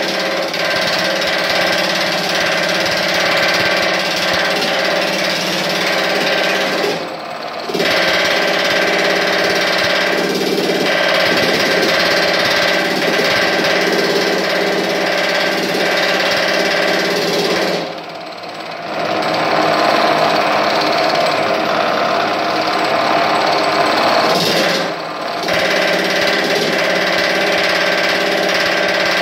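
Whiting Quickwork belt-driven power hammer running and rapidly hammering a 16-gauge sheet-metal panel into shape. The hammering breaks off briefly three times, about a quarter, two thirds and five sixths of the way through, then resumes.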